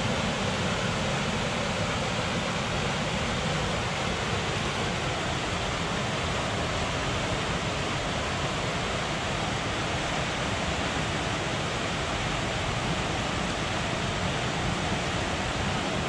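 River Aire flowing fast over a ford: a steady, even rush of water.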